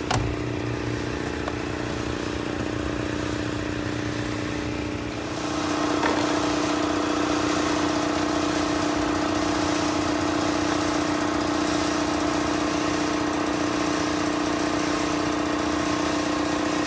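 A motor or engine running steadily, a droning hum with a strong low tone, a little louder from about five seconds in.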